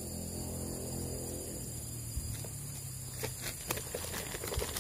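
A steady low hum that fades out over the first second and a half, then a run of small clicks and rustles near the microphone from about three seconds in: hands handling fishing tackle, with the hook being baited.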